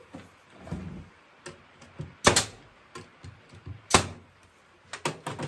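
Oak chair parts being handled and fitted together: a series of sharp wooden knocks and clacks. The loudest come about two and four seconds in, with a quick cluster near the end.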